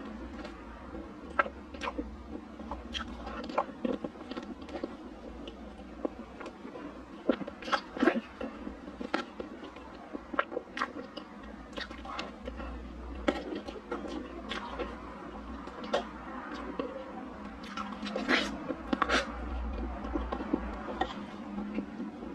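Close-miked eating of soft chocolate mousse cake: wet chewing and lip smacking, with sharp mouth clicks at irregular intervals throughout.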